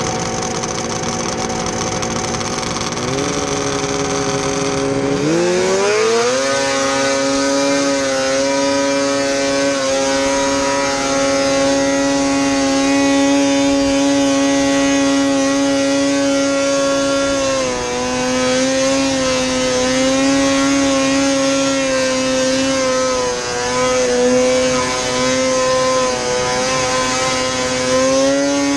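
Modified 2006 Ski-Doo Rev 600cc two-stroke snowmobile engine running at lower revs, then revving up sharply about five seconds in as the sled launches. It holds a steady high note at full throttle while skimming across the water, with two brief dips in revs later on.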